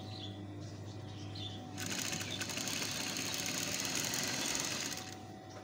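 Sewing machine stitching in one fast, continuous burst of about three seconds, starting about two seconds in and stopping near the end.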